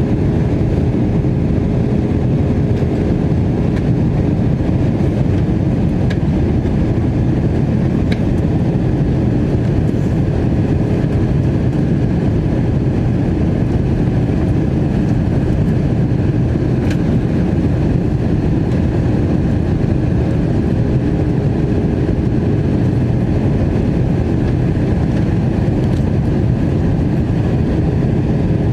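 Steady roar of the engines and rushing air inside the passenger cabin of an Airbus A321 airliner in flight, with a steady hum running through it and a few faint ticks.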